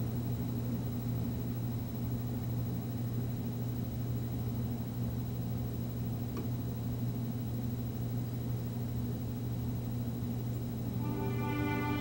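Steady low hum and rumble. Near the end, orchestral music with strings begins: the soundtrack of the fountain show starting.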